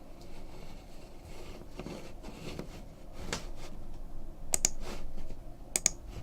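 Light handling noises on a desk, with sharp double clicks twice in the second half.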